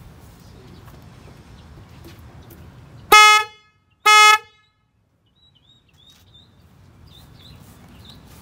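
Replacement horn on a 2008 Honda Civic, an Accord-type part, sounded twice in short blasts about a second apart, each one steady 'bop' tone: a sound test of the newly installed horn.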